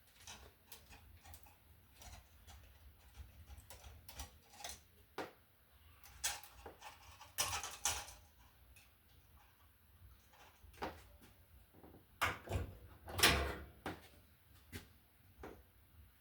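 Scattered clicks, taps and short scrapes of a wall receptacle and its wires being handled and taken apart, with two louder knocks, one about halfway through and one near the end.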